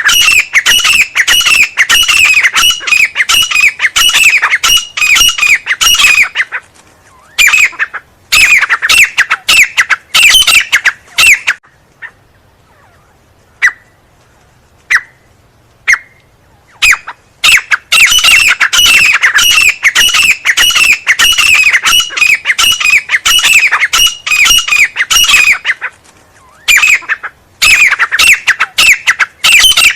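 Teetar (francolin) calling: loud, rapid runs of short notes that each dip in pitch. They come in bouts broken by pauses, and a few lone notes fall in the longest pause, near the middle.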